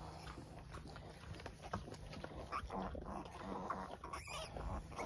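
Faint grunts and squeaks from a kunekune sow in the middle of farrowing and her newborn piglets, over scattered rustling and shuffling in the pen.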